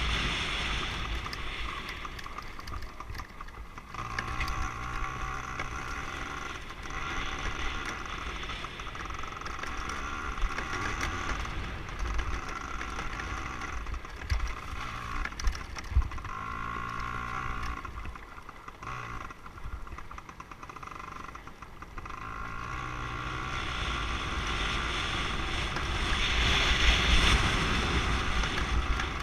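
An off-road vehicle's engine running, holding a steady pitch for long stretches and shifting in pitch now and then. Wind buffets the microphone, heaviest near the start and the end.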